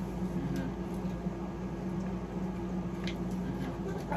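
Steady low machine hum in a small room, with a few faint clicks, about half a second in and again about three seconds in.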